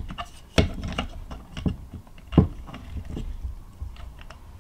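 Plastic clicks and knocks as a small cooling fan is pressed and fitted into a 3D-printed plastic extruder bracket by hand, two of the knocks louder than the rest.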